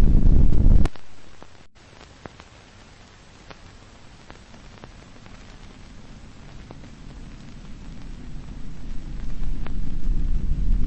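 A deep, loud rumble cuts off suddenly about a second in, leaving the faint hiss and scattered clicks of an old film soundtrack. The rumble then swells back gradually and is loud again near the end.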